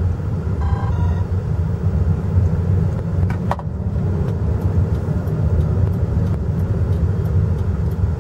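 Cabin noise of a JAC T5 crossover on the move: its 1.5 flex-fuel engine and the road make a steady low rumble, with a couple of faint clicks about three seconds in.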